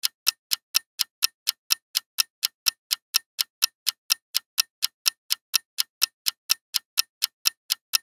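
Clock-ticking sound effect of a countdown timer: even, sharp ticks at about four a second.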